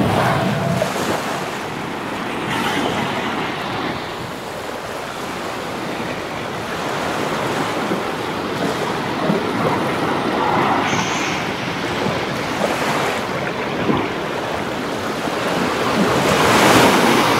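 Small surf breaking and washing up a sandy beach, a steady rush that swells and eases with each wave, loudest near the end, with wind buffeting the microphone.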